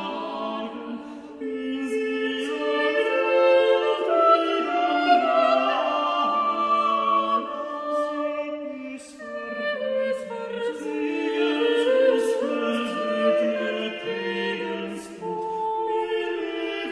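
Several voices singing together in harmony, like a choir, with pitch lines moving in several parts at once and sung consonants audible.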